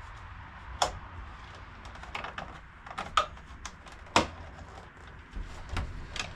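Sharp, irregular plastic clicks and knocks from an Elite scooter's rear headset cover being pried and clicked loose by hand, about eight in a few seconds.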